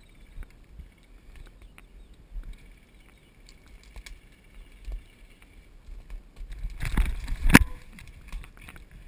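Faint scattered clicks and rustling, the handling noise of a player moving with a camera, then a loud scraping rustle about seven seconds in that ends in a sharp knock.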